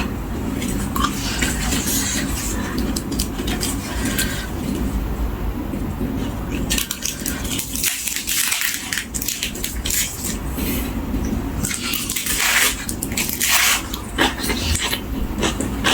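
Eating sounds: crunchy chewing of crisp fresh vegetables, with a spoon or fork clicking against a dish many times over a steady low hum.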